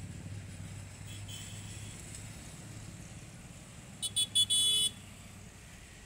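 Road traffic running past, a steady low rumble of engines and tyres, with a high-pitched vehicle horn honking about four seconds in: three short toots and then a longer one.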